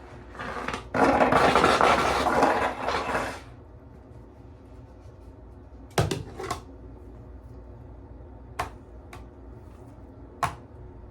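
A cream pie in a small tin pushed into a face: a loud, dense squishing and rustling noise lasting about two and a half seconds, then a few sharp clicks and knocks.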